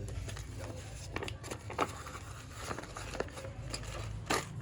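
Packaging of a charging cable being handled and opened: scattered light rustles and clicks, with one sharper tap near the end.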